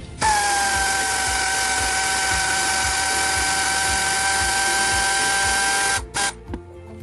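A handheld power tool's electric motor runs at a steady whir for about six seconds, pitch easing down slightly just after it starts, then stops and gives one short blip.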